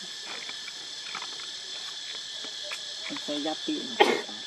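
Steady high-pitched buzzing of insects throughout, with a brief voice-like call a little after three seconds in and a sharp loud knock about four seconds in.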